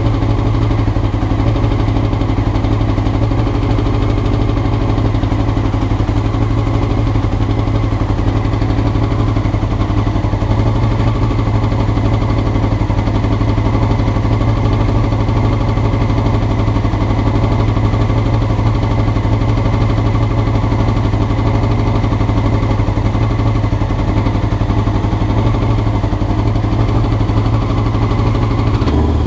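Honda CBR motorcycle engine idling steadily, with a strong low hum and a fast, even pulsing.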